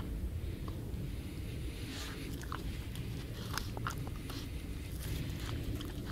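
Young dog chewing and gnawing on a scrap pinned under its paw, with scattered crunches and clicks over a low steady rumble.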